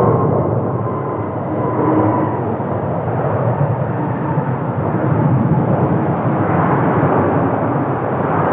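Airbus A330-323's twin Pratt & Whitney PW4000 turbofans heard during a landing: a steady jet rushing with a faint whine that dips slightly in pitch early on, the noise swelling a little near the end.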